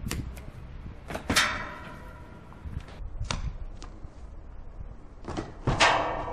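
A few sharp footfalls and landings on concrete as a freerunner jumps along a planter ledge, then the loudest thud about six seconds in as he hits an iron railing. A steady low rumble of wind on the microphone lies under it.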